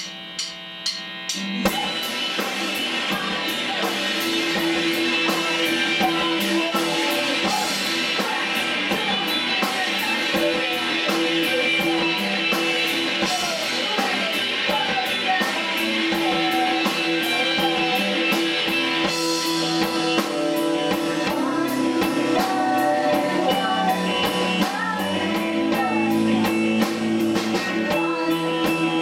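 Indie rock band playing live: electric guitars, bass and drum kit, with a woman singing over them. A few quick clicks open it before the full band comes in about a second and a half in.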